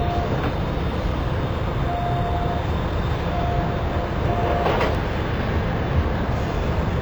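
Heavy vehicle running: a steady low rumble with road noise, with a short high tone sounding three or four times.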